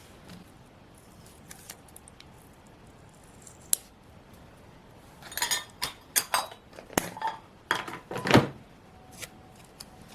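Scissors snipping, with light paper handling: a few faint ticks, then a quick run of short snips and rustles starting about five seconds in, the loudest near the end.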